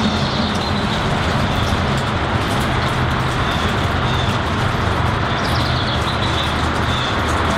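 Steady rainfall pattering on tree leaves and garden plants, a dense, even hiss with no let-up.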